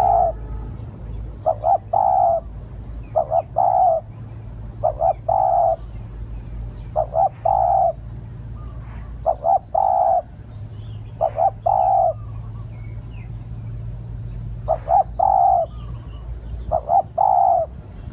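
Spotted dove cooing over and over, each phrase a couple of short notes then a longer rolling coo, repeated about every two seconds with a pause of a few seconds near the middle. Faint high chirps sound between the coos.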